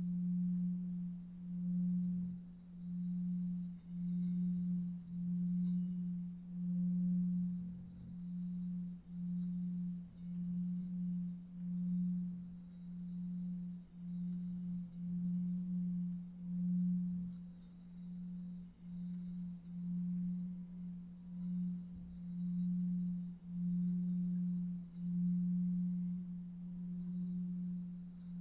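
Low steady electronic tone, a pure hum that swells and fades about once a second, laid under a guided meditation.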